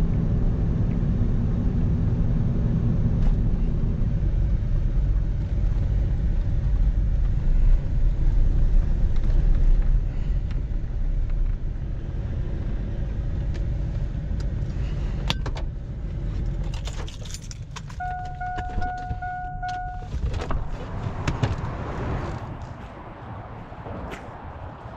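Chevy Silverado pickup rolling slowly, heard as a steady low rumble inside the cab. After about fifteen seconds it stops: a few sharp clicks and a jingle of keys, then a steady electronic beep for about two seconds. Near the end a quieter wash of passing road traffic from the interstate overhead.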